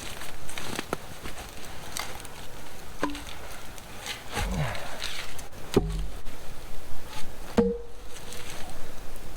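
Irregular wooden knocks and clatter, as of pieces of wood being struck or handled. A few louder knocks each ring briefly.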